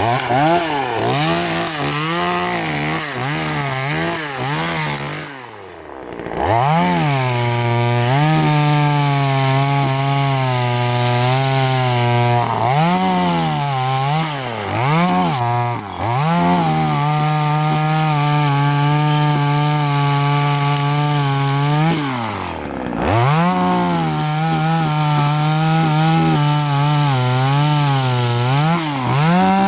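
TimberPro CS2500 25.4 cc two-stroke top-handle chainsaw revving and cutting into pine. Its engine speed rises and falls repeatedly, is held steady at high revs for several seconds at a time, and twice drops back to idle before revving up again.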